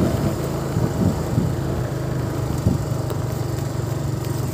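Small motorcycle engine running steadily at low speed while the bike is ridden.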